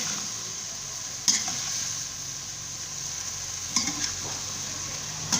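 Stir-fry of green beans, carrots, tofu and freshly added mushrooms sizzling steadily in a pan as it is stirred, with the stirring utensil knocking sharply against the pan three times.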